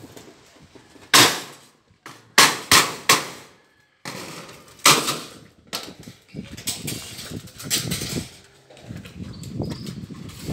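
A series of loud, sharp bangs on corrugated metal roof sheeting: five strikes in the first five seconds, three of them close together, then lighter knocking and clatter.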